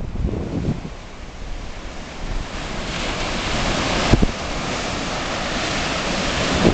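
Surf breaking and washing up a sandy beach, the rush of water building about two and a half seconds in and then holding steady, with wind buffeting the microphone.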